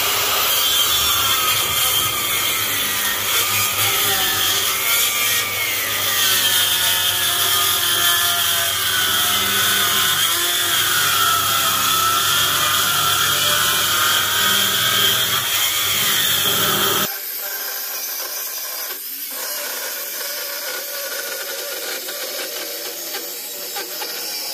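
Handheld power saw cutting through wood, its motor pitch sagging and recovering as the blade loads up in the cut. The saw sound stops abruptly about two-thirds of the way in, leaving a quieter, thinner sound.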